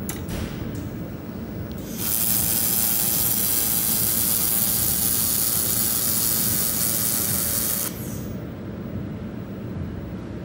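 Handheld fiber laser welder welding 1 mm stainless steel sheet: a loud hiss and sizzle with a steady buzzing whine starts sharply about two seconds in and cuts off after about six seconds. A low machine hum runs underneath.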